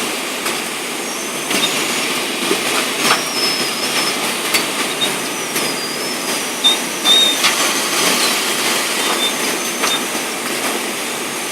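Cat litter bagging machine running: a steady mechanical noise with sharp clicks every second or two and short high squeals now and then.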